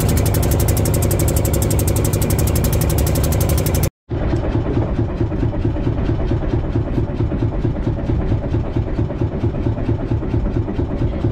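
Fishing boat's engine running steadily with a regular, rapid chug, broken by a brief total gap about four seconds in, after which it runs on.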